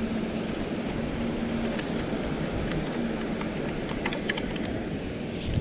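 Steady wash of surf and wind on a beach, with a faint low tone coming and going and a run of light clicks in the second half.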